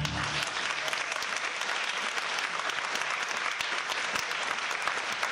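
Theatre audience applauding steadily as the musical number ends.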